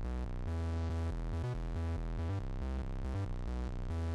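Electronic background music with a heavy synth bass line that changes notes every half second or so.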